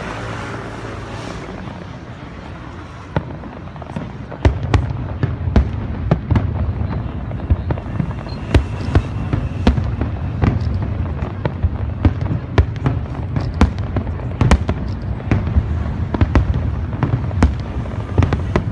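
Aerial firework shells bursting in a dense barrage: a quieter opening, then from about four seconds in a rapid string of sharp bangs and cracks, several a second, over a continuous low rumble.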